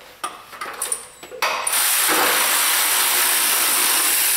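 A few light clicks of a tool on metal, then an air ratchet runs steadily for about three seconds and stops suddenly, backing out a 12 mm heat-shield bolt on the exhaust manifold.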